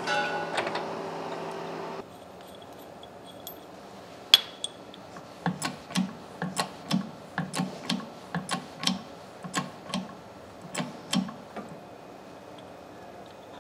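A steady shop hum that cuts off after about two seconds. Then a sharp metal click, followed by a run of light metallic clicks about two a second, as a wrench is worked on the bolt of a leveling foot at the base of a milling machine.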